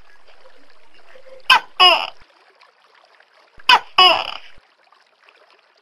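Tokay gecko calling its two-part "to-kay" call twice, about two seconds apart. Each call is a short sharp note followed by a longer one.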